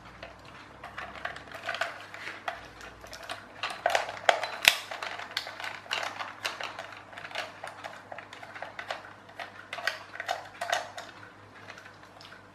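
Small screwdriver working at the screws in the underside of a plastic toy tractor, with irregular clicks and scrapes of metal on hard plastic as the toy is handled; one sharper click a little before halfway.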